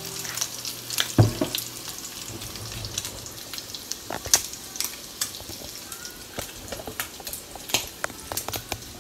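Bacon frying in a pan: a steady sizzle with irregular sharp pops and crackles of spattering fat. A single low thump about a second in.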